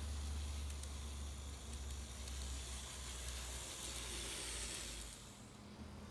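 N gauge model electric train running along the track and passing close by: a hissing whir of its motor and wheels that swells as it comes near, then drops away suddenly about five seconds in.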